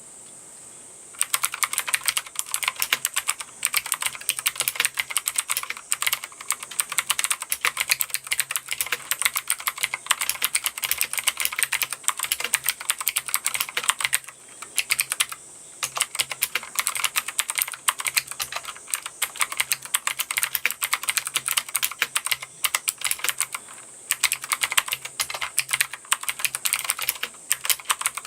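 Continuous fast typing on a Martell MKF13 mechanical keyboard with blue clicky switches, each keystroke a sharp click. It starts about a second in and pauses briefly a few times.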